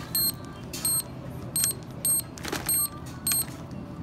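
Ingenico card-reader keypad at a store checkout beeping once per key press as a phone number is entered: about six short, high beeps, roughly one every two-thirds of a second.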